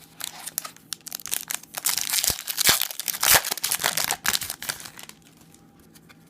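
Trading-card pack wrapper being torn open and crinkled by hand: a dense run of crackling and sharp snaps, loudest in the middle and dying away about five seconds in.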